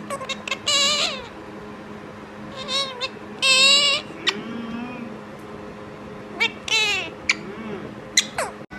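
Pet parrot calling: short sharp squawks and several longer, wavering screeches, the loudest about halfway through.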